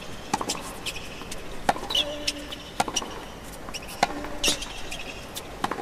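A tennis rally on a hard court: a racquet strikes the ball five times, about once every second and a bit, as the two players trade shots. Short squeaks of tennis shoes on the court come between the hits.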